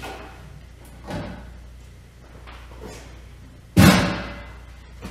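Workbench handling noises over a steady low hum: a couple of light knocks and clatters, then one loud thud with a short ringing tail nearly four seconds in, as parts are handled and set down.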